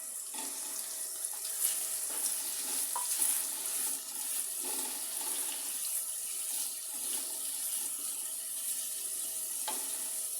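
Onions sizzling as they fry in hot oil in a kadhai: a steady frying hiss with scattered small crackles of spattering oil.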